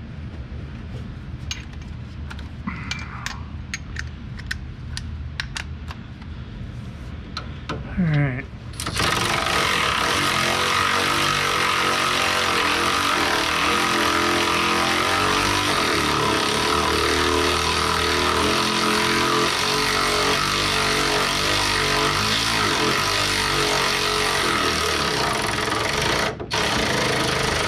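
A few faint clicks of hand tools, then about nine seconds in a loud motor-driven machine starts suddenly and runs steadily, cutting out for an instant near the end.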